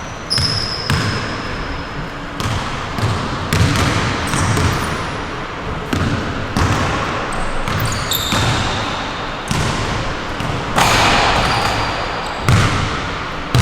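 Basketball bouncing: a run of repeated thuds, with brief high squeaks between them.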